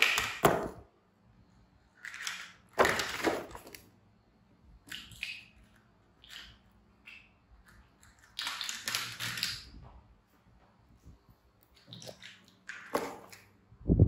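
Several short bursts of rustling and clattering from baby macaques handling a cardboard toy box and plastic toy construction vehicles on a tiled floor, the loudest as the box is tipped up at the start.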